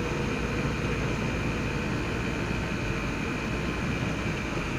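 Steady running noise of a moving car heard from inside its cabin: engine and tyre rumble on the road, with a faint thin high tone over it.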